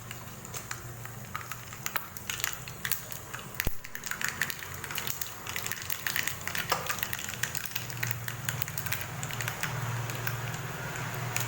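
Mustard seeds popping and spluttering in hot coconut oil in a pan, a rapid irregular crackle of small pops over a low steady hum.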